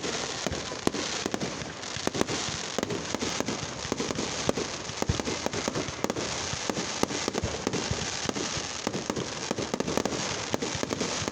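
Aerial fireworks going off in quick succession: a dense, unbroken run of sharp bangs and crackling pops, many a second.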